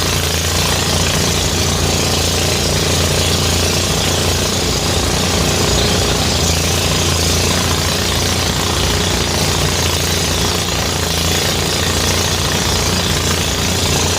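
Engine-driven rice threshing machine running steadily at full noise, a constant low engine drone under a dense rattling hiss.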